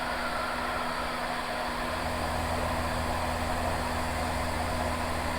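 Van's RV-7's engine and propeller droning steadily in cruise at 2450 RPM, heard inside the cockpit, with a steady hiss of airflow. A deeper low hum joins about two seconds in.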